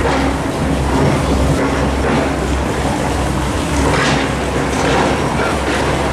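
Construction machinery running: a loud, steady low engine rumble with a rough clatter over it and a few sharp clanks, about two and four seconds in.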